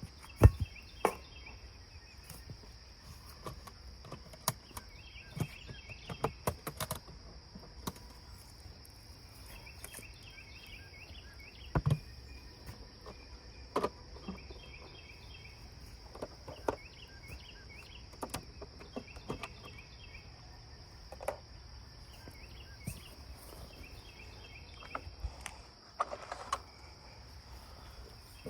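Insects, likely crickets, give a steady high drone with repeated short chirp trills. Scattered knocks and clicks sound throughout, the loudest about half a second in and again about twelve seconds in.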